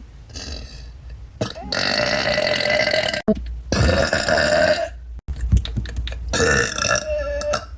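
A woman's long, drawn-out burps, three big ones in a row and a fainter one before them. Each lasts a second or more and is cut off abruptly.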